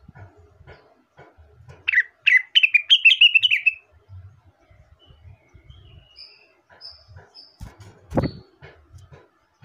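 Blue-winged leafbird (cucak wilis / rengganis) singing: a quick run of chirping notes about two seconds in, then a few thin high whistled notes. Soft tapping runs underneath, with a sharp click near the end.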